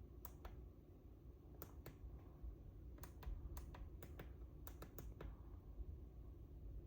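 Light, sharp clicks, about a dozen, irregular and often in close pairs, that stop about five seconds in, over a faint low rumble.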